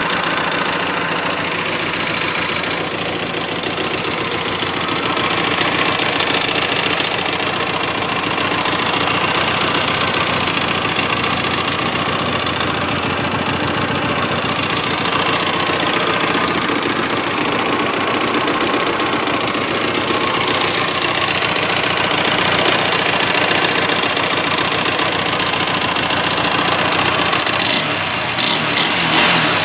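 2007 Hyosung GT250R's V-twin engine idling with a fast, steady clicking and clattering tick. The owner suspects out-of-adjustment valve clearances or a slack cam chain tensioner.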